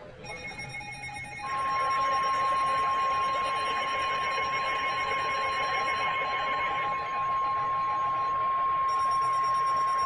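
NOAA Weather Radio 1050 Hz warning alarm tone coming through weather alert radios: one steady single-pitched tone that starts about a second and a half in, over radio hiss. It announces a severe thunderstorm warning. A higher electronic tone sounds with it, drops out for a few seconds and comes back near the end.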